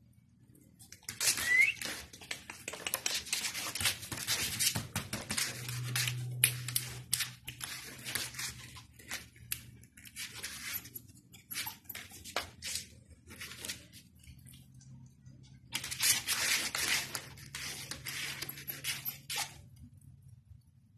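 Crackly rustling and scratching of a fabric blanket as a young Golden Retriever × Japanese Spitz puppy scrambles and mouths at it, in two spells of many quick scratches. A brief high squeak sounds about a second and a half in.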